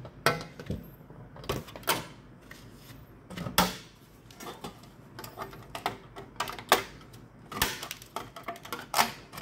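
TTMC NS-01 hand nibbler shears snipping through sheet steel: a sharp metallic click with each squeeze of the handles, coming irregularly.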